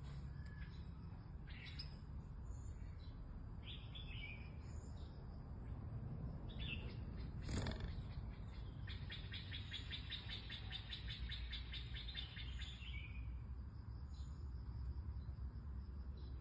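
Red-whiskered bulbul giving short, scattered song phrases. A fast, even trill runs for about four seconds past the middle, and there is one sharp click a little before it, over a steady low hum.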